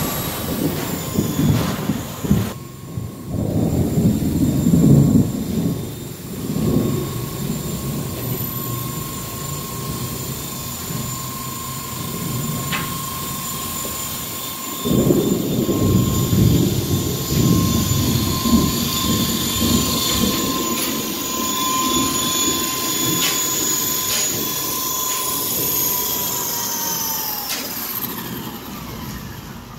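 WLtoys V913 electric RC helicopter in flight: a steady high motor and gear whine with rushing air noise in patches. Near the end the whine falls in pitch and fades as the rotor spins down after landing.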